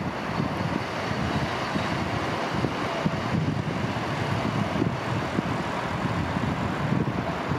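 El 18 electric locomotive moving slowly over station pointwork, giving a steady mechanical running noise, with wind gusting on the microphone.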